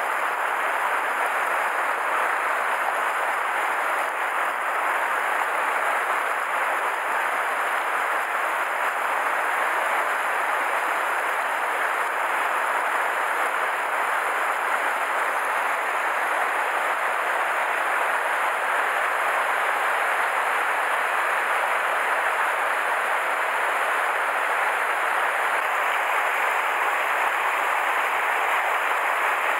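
Mountain headwater stream rushing over granite boulders and small cascades: a steady, unbroken water noise.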